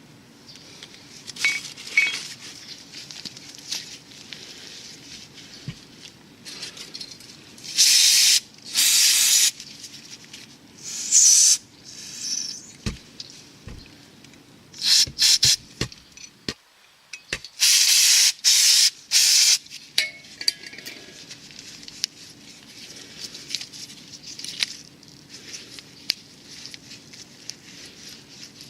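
Aerosol parts cleaner sprayed in several short hissing bursts of about a second each, between light metallic clinks of small brake caliper parts being handled.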